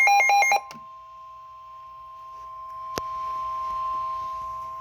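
Tail of an EAS SAME header's digital data burst, a harsh warbling screech that cuts off about half a second in. It is followed by the NOAA Weather Radio warning alarm tone, a steady, quieter high tone that signals an alert is about to be read. A sharp click falls about three seconds in.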